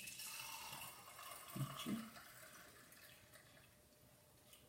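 Water poured into a container over frankincense resin, a faint pouring splash that fades away after about two seconds.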